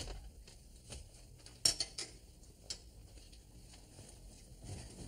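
A few faint, sharp clicks and knocks over quiet room tone. The loudest is a quick double click about a second and a half in.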